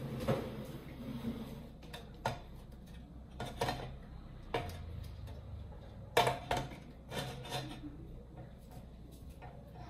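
A saucepan being set down and shifted on the grate of a portable gas burner: a string of separate knocks and clatters, the loudest pair about six seconds in.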